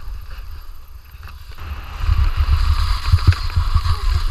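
Skis hissing over wind-packed snow, with heavy wind buffeting on the action camera's microphone that grows louder about two seconds in.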